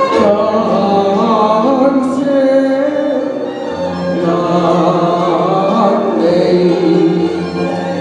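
A man singing a Cantonese opera-style song into a microphone over amplified instrumental accompaniment.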